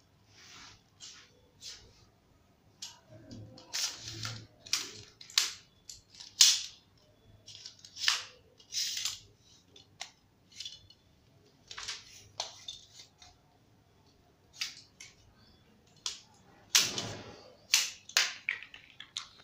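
Yunteng VCT-1688 tripod-selfie stick being handled: irregular sharp clicks and clacks of its legs and telescoping pole sections, with a few longer sliding scrapes as sections are pulled out. The clicks are busiest a few seconds in and again near the end.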